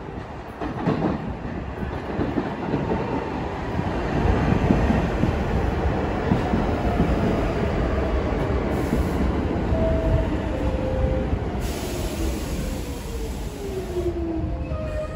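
New York City subway train pulling into the station, rumbling over the rails, with a whine that falls in pitch as it slows. Short wheel squeals come near the end.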